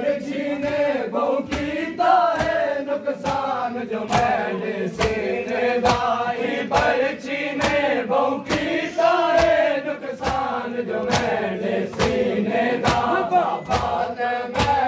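A crowd of male mourners singing a Punjabi noha lament in unison, with rhythmic matam (open-handed chest-beating) keeping time at about two slaps a second.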